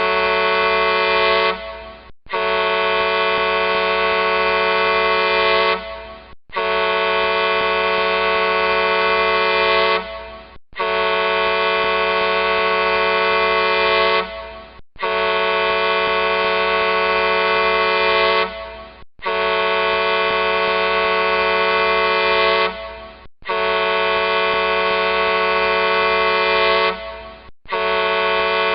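Large truck horn sounding in long, steady blasts of about four seconds each, repeated over and over with short breaks between them; each blast fades briefly at its end.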